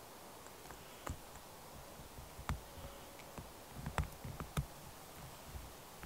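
Scattered light clicks and knocks with faint rustling from hands handling small gear and a bundle of dry grass tinder. The sharpest clicks come about two and a half, four and four and a half seconds in.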